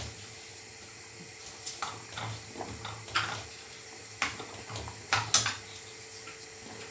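A cooking spoon stirring boiled chickpeas and potatoes in a stainless steel saucepan: scattered soft scrapes and clacks against the pan, the loudest about five seconds in, over a faint steady hum.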